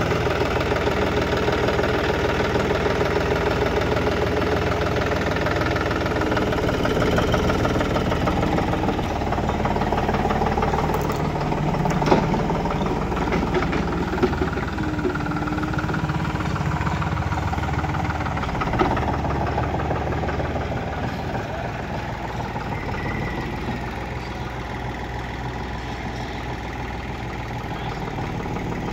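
John Deere 5310 tractor's three-cylinder diesel engine running steadily as the tractor moves off, with a few sharp knocks near the middle; it grows a little fainter in the last third as the tractor pulls away.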